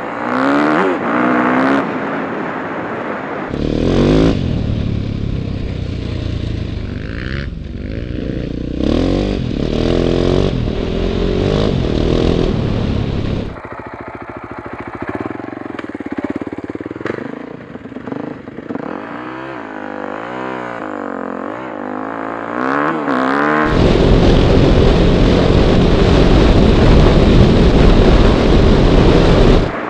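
Four-stroke single-cylinder dirt bike engine under way on a trail, revving up and down as the rider works the throttle and gears. Heavy wind buffeting on the bike-mounted camera's microphone comes and goes and is loudest near the end, and the sound changes abruptly a few times.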